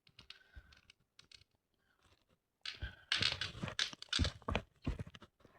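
Microfiber cloth rustling and scraping on a barrel cleaning rod as it is unwound and handled. A few faint clicks come first, then from about two and a half seconds in a run of short scratchy, crunchy bursts.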